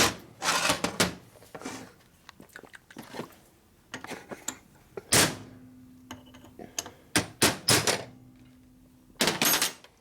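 Metal hand tools and loose parts clanking and tapping on a workbench: a handful of sharp knocks with lighter ticks between them. The loudest knocks come at the start, about five seconds in and near the end, and a faint steady hum runs through the middle stretch.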